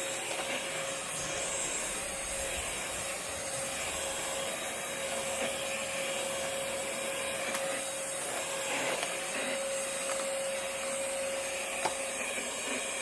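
Vacuum cleaner running steadily while crumbs are cleaned up, a constant rushing noise with a steady whine in it.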